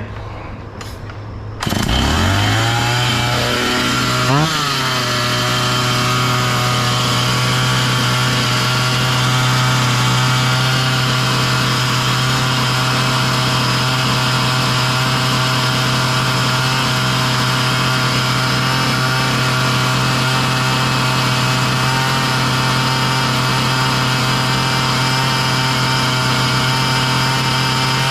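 Husqvarna 445 two-stroke chainsaw engine catching about two seconds in, its pitch climbing with a brief blip of revs, then running fast and steady at a high idle with the mixture screws set a turn and a half out. The idle stays too high, which the owner suspects means the saw may need a new carburetor.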